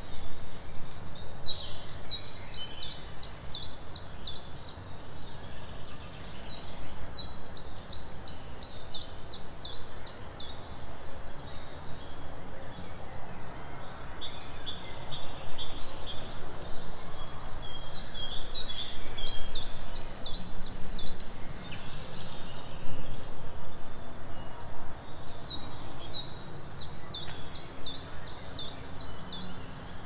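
A songbird singing in a spring forest: four phrases, each a quick run of repeated downward-sweeping high notes lasting three to four seconds, with softer bird notes between them. A steady low rumble runs underneath.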